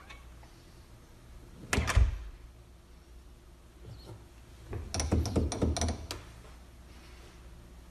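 A door and its lock hardware being worked: a heavy thunk about two seconds in, then a quick run of clicks and knocks around five to six seconds.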